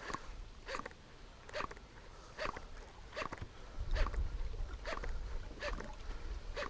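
A topwater popper lure being twitched across calm water, making a short pop and splash about every 0.8 s.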